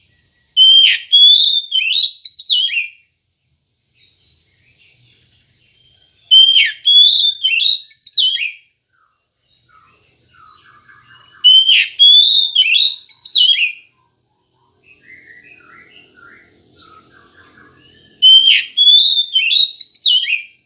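Oriental magpie-robin (kacer) singing: four loud, near-identical whistled phrases about six seconds apart, each a quick run of sharp falling notes, with faint softer chirps between them.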